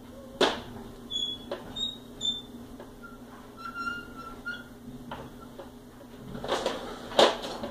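Large plastic toy truck handled and pushed on carpet: a sharp knock about half a second in, a few short high squeaks, then a rolling scrape and another sharp knock near the end.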